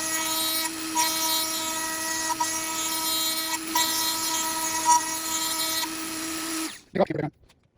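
Dremel rotary tool, clamped in a lathe's tool post as a makeshift tool post grinder, running at high speed with a steady high-pitched whine while grinding a hardened steel part. It cuts off suddenly near the end, followed by one short low knock.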